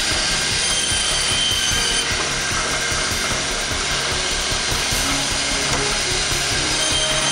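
Pro-Saw SS16 stainless steel meat band saw running and cutting a beef short loin, bone included, into porterhouse steaks: a steady, noisy machine sound with a brief high whine about a second and a half in and again near the end.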